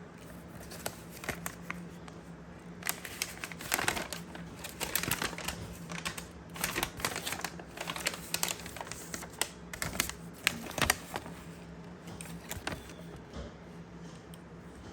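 Irregular small clicks, taps and rustles of things being handled at close range, busiest in the middle and thinning out near the end.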